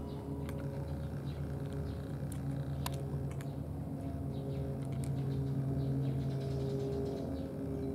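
A cat eating from a tray: faint, scattered small clicks of chewing and mouth sounds over a steady low mechanical hum.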